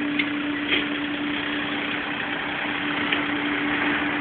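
Steady engine or machine running: a constant hum at one pitch over an even hiss, with a few faint clicks.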